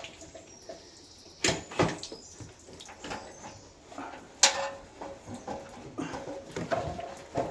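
A part-full fuel tank being worked into place from above, knocking against the chassis with a few sharp bangs and scrapes, among short whining sounds.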